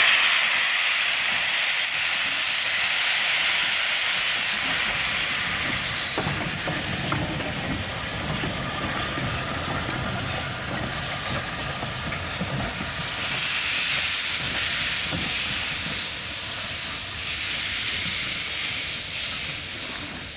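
Rebuilt Merchant Navy class 4-6-2 steam locomotive 35018 hissing loudly as steam blows from its open cylinder drain cocks. It then moves off slowly, rumbling and knocking over the rails, with two further surges of steam hiss, fading as it goes.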